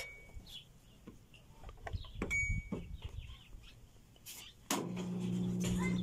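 LG washing machine giving a short electronic beep about two seconds in, then, near the end, its drain pump starting up with a steady low hum as the cycle begins by pumping out water.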